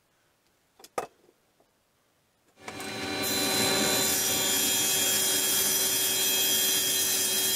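Table saw starting about two and a half seconds in, spinning up over about a second, then running steadily with a whine as a sheet of 1/8-inch aluminum is fed toward its blade. A single short click about a second in.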